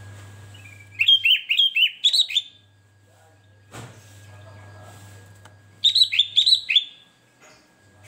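Sooty-headed bulbul singing two short phrases of a few quick notes each, about a second in and again about six seconds in.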